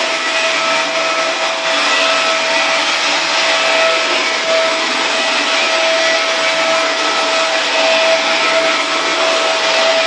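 Dyson DC24 upright vacuum cleaner running steadily while pushed over carpet: a constant rush of air with a steady whine from the motor.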